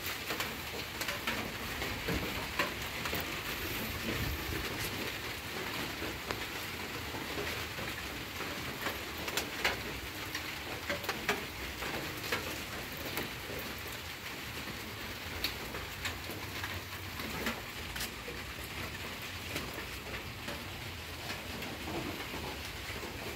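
Steady rain falling onto standing water, with many scattered sharper ticks of individual drops.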